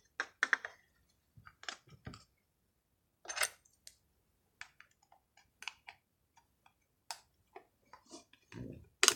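Whipped-cream slime being squished and pressed by hand, giving scattered small clicks and pops at irregular intervals, with a louder squish near the end.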